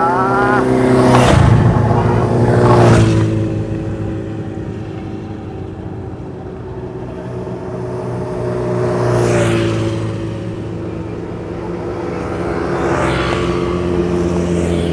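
Motor vehicles passing by on a highway, one after another, over a steady engine hum. The two loudest pass within the first few seconds and two more come later. The pitch of one drops as it goes by.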